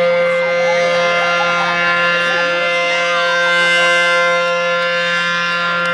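A siren sounding one steady, unbroken tone, with the chatter of a crowd of runners faintly underneath.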